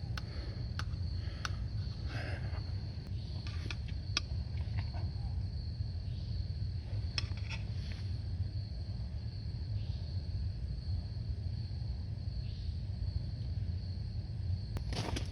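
Insects trilling steadily in a high, thin tone over a low, steady rumble, with scattered light clicks and taps.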